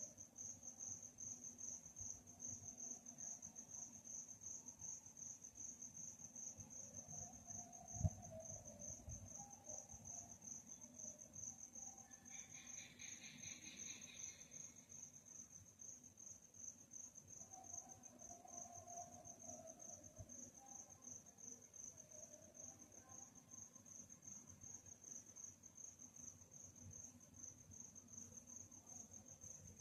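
Crickets chirping at night in a fast, even, high-pitched pulse that never stops. A second, lower trill joins for about two seconds near the middle, and a single low thump sounds about eight seconds in.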